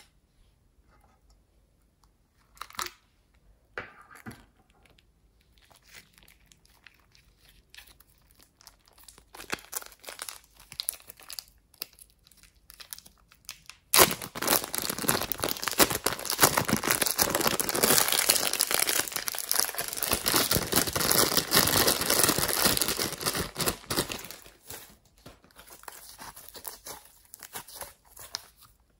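Plastic zip-lock bag of gold glitter powder crinkling in the hands, in scattered short rustles at first. About halfway through it starts suddenly into a loud, dense crinkling for some ten seconds as the bag is opened and the powder shaken out, then drops to softer crackles.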